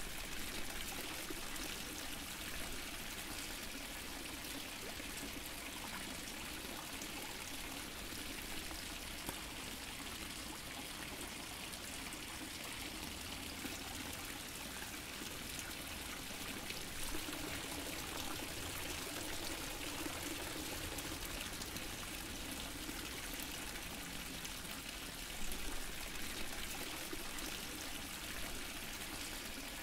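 Fountain water splashing and trickling steadily, with a couple of slightly louder splashes about 17 and 25 seconds in.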